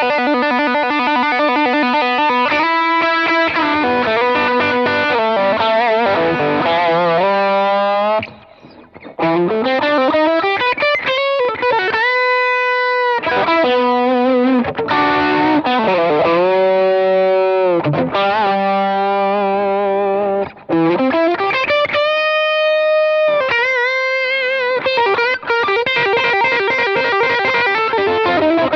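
James Tyler Variax electric guitar on its magnetic pickups, played through a Line 6 Helix preset with overdrive: sustained chords and held single notes, some sliding or bending in pitch, with a brief break about eight seconds in.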